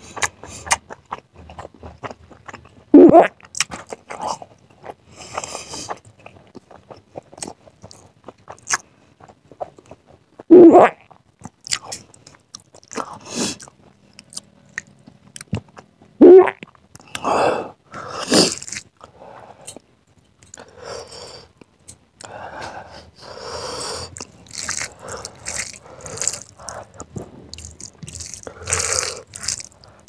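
Close-up eating with the bare hand: wet smacking and chewing of rice, chicken and egg curry, with squelching as fingers mash rice into the gravy. Three loud, short 'mm'-like voice sounds, falling in pitch, come about 3, 11 and 16 seconds in.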